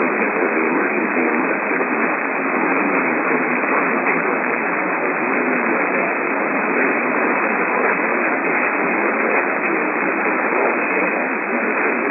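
Radio receiver static: a steady, dense hiss in a narrow, telephone-like band, with faint speech buried under the noise.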